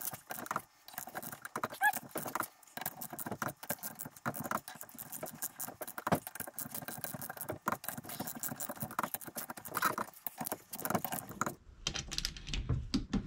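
Ratcheting torque wrench clicking in quick, irregular runs with short pauses, as the cylinder-head bolts are run down and torqued to 21 foot-pounds.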